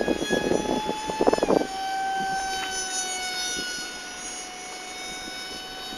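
Electric motor of a homemade radio-controlled model jet whining steadily in flight, its pitch dropping slightly about a second and a half in. Loud rough crackling bursts cover the first second and a half.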